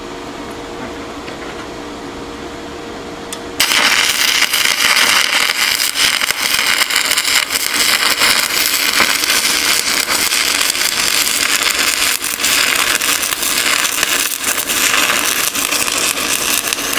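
Stick welding arc from an HTP Inverarc 160 Plus: a dense, loud crackle and sizzle starts suddenly when the arc is struck about three and a half seconds in and runs steadily until it cuts off at the end. Before the arc strikes there is only a steady hum.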